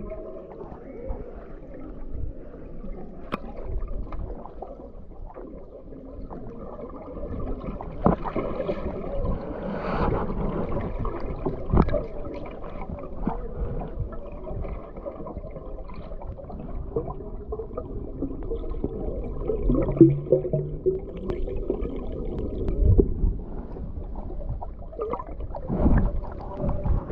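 Muffled underwater sound picked up by a submerged camera: a low rumble of moving water with gurgles and scattered short knocks, and faint muffled tones now and then.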